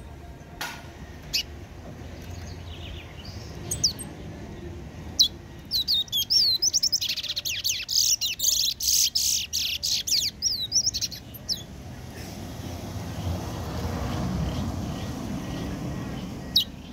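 A caged songbird gives single sharp chirps, then a fast run of chirping song for about six seconds midway, then one more chirp near the end. A low rumble swells and fades in the latter part.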